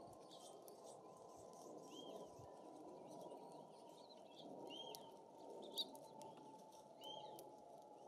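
Small songbirds at seed feeders giving short, quiet chirping calls every second or two, with light clicks and taps from birds pecking and shifting on the feeders. One sharp tap comes a little past the middle.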